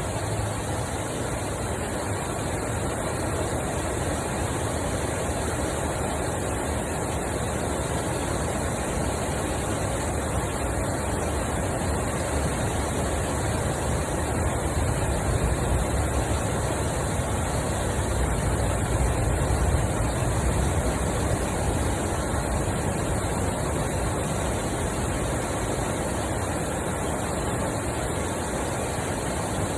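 Steady outdoor rushing noise. A low rumble swells about halfway through and then fades back.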